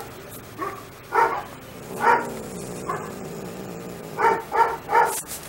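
Small dog giving short, high-pitched yapping barks, a few at a time with pauses between, three quick ones near the end.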